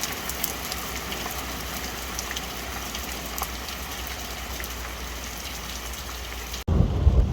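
Steady heavy rain with scattered ticks of drops. Near the end the sound cuts off abruptly and gives way to a loud low rumble of thunder.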